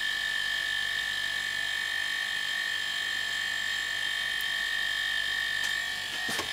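Two small electric air compressors running at once, a steady high-pitched whine over a faint low electrical hum.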